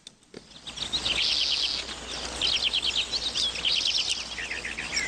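Birds chirping in rapid trills over a steady hissing background, starting about a second in just after a short click.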